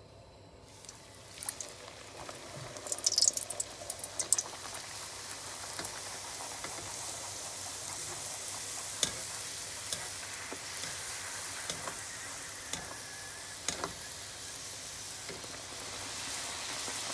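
Poori dropped into hot oil in a kadhai, deep-frying. A sizzle starts about a second in and crackles loudly for a couple of seconds, then settles into a steady sizzle with a few light clicks.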